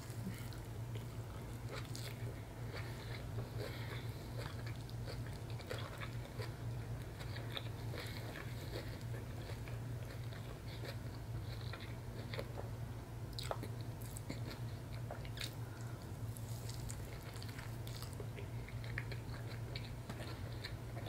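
A person biting and chewing a soft cajun catfish sandwich on cauliflower flatbread, with many small irregular wet mouth clicks. A steady low hum runs underneath.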